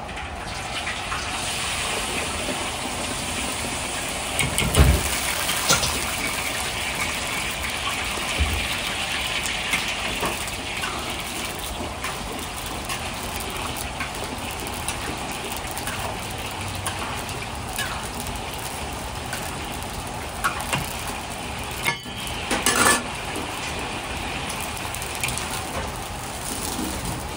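Green peas frying in a wok of hot oil: a steady bubbling sizzle over the even rush of a commercial wok burner. A few metal knocks of the ladle and wire strainer against the wok, the loudest about five seconds in and a cluster late on.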